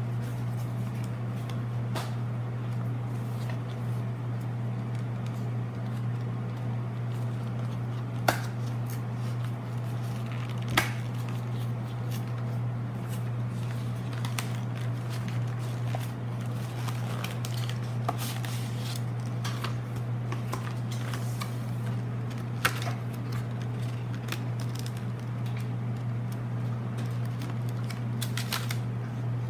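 Cardboard box and plastic blister packaging being handled and opened by hand: scattered sharp clicks and light rustling, over a steady low hum.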